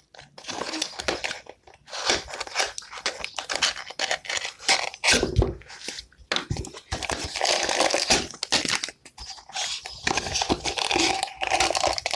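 Crinkling, crunching and tearing of the packaging of a Littlest Pet Shop Thirsty Pets blind container as it is worked open by hand, in irregular bursts that grow busier in the second half.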